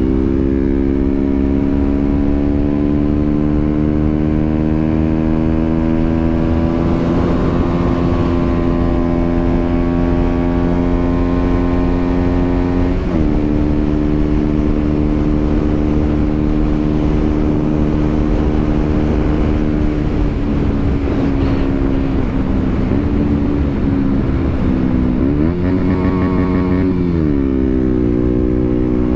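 KTM Duke 125's single-cylinder engine running under way. The revs climb slowly, then drop sharply about halfway through as it shifts up; later they fall off, dip and swing back up again near the end.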